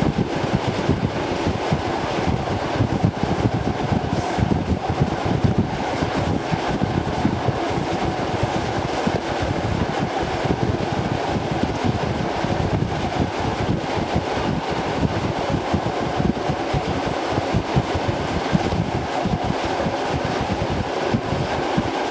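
PKP EN57 electric multiple unit running at speed, heard from on board: a steady, rough rumble of the wheels and running gear on the rails.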